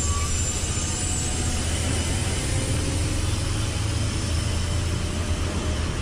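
Tata heavy-haul truck's diesel engine running with a steady low drone as the truck and its long trailer pass close by, with tyre noise on the wet road over it.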